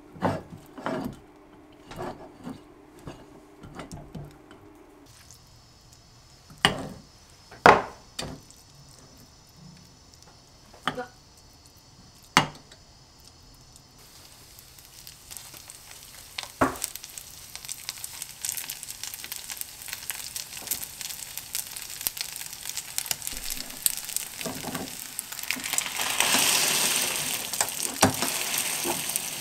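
Sharp knocks and clicks of utensils against a fish-shaped bungeoppang pan. From about halfway, rice mixture pressed into the oiled pan over a gas flame starts to sizzle, growing louder and loudest near the end.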